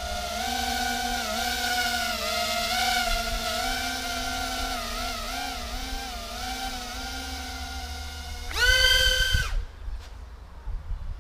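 Brushless motors and 3-inch bullnose propellers of a 130 mm mini FPV quadcopter in flight, a steady whine whose pitch wavers as the throttle is worked in a hover. About 8.5 s in the pitch jumps sharply higher and louder as the throttle is punched, then the sound falls away within a second as the quad climbs off.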